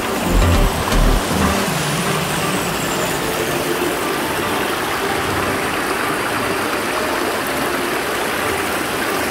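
Shallow river riffle rushing steadily over rocks, a constant wash of water. Background music with a bass beat plays over it for about the first second and then stops.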